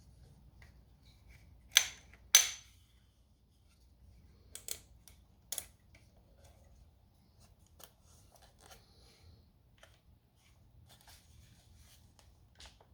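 Handling of a new DeWalt 20V cordless jigsaw: two sharp snaps about half a second apart, then a few lighter clicks and clacks of its plastic and metal parts being worked.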